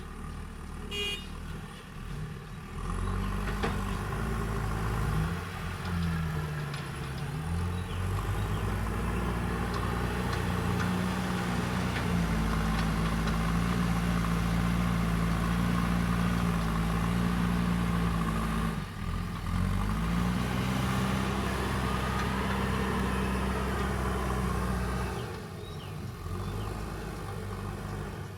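Heavy earthmoving machine's diesel engine running under load, its pitch sagging and picking up again about six seconds in and again past the middle. It drops back to a quieter, lower running near the end.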